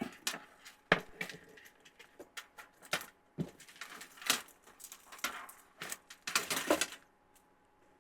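Irregular clicks, taps and rustles of plastic LED icicle light tubes and their wiring being handled, stopping about seven seconds in.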